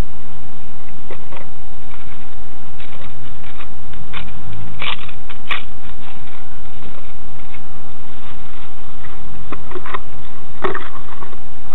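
A trowel and gloved hands scraping, scooping and mixing cement in a plastic bucket and working it into a hole in a brick wall: irregular scrapes and clicks, busiest about four to five seconds in and again near the end, over a steady thin whine and hiss.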